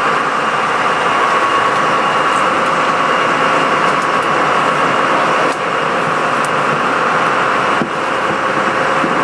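Sport-fishing boat's engine running steadily underway, a loud drone mixed with rushing wake water.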